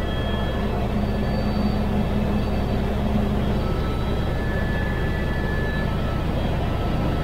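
Steady low drone of a small helicopter in flight.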